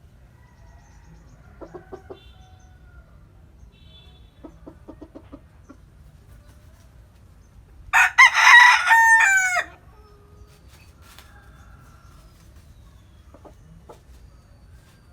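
A bantam rooster crows once, loudly, for just under two seconds about eight seconds in, its pitch dropping at the end. Before the crow there are two brief runs of faint, short clucks.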